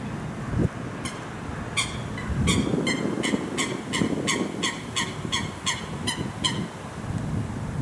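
Warning bell ringing a fast, even series of strokes, about three a second. It starts about a second in and stops near the end, over a low rumble.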